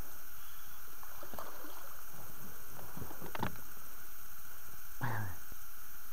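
Water lapping and sloshing against a small boat over a steady hiss, with a few light knocks and splashes around the middle. About five seconds in comes a brief low grunt-like voice sound from the angler.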